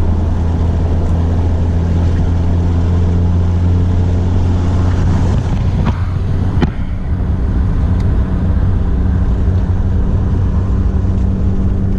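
Turbocharged four-cylinder of a 10th-gen Honda Civic hatchback fitted with a PRL Cobra cold air intake, heard from inside the cabin while driving: a steady low drone with wind noise. About six and a half seconds in, a short rising sound ends in a sharp click and the engine note changes pitch.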